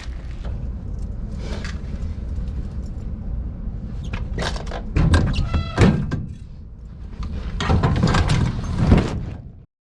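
A steady low rumble. Halfway through come a series of sharp clicks and knocks, with a quick rattle of evenly spaced ticks, and more knocking follows near the end. The sound then cuts off abruptly.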